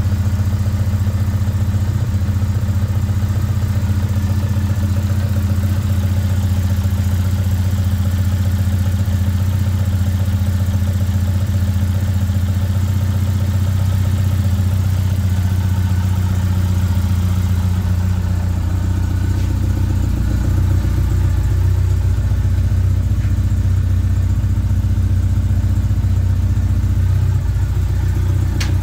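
Ford Escort RS1600's 1.6-litre Cosworth BDA 16-valve twin-cam four-cylinder idling steadily. It breathes through twin side-draught carburettors with open trumpets.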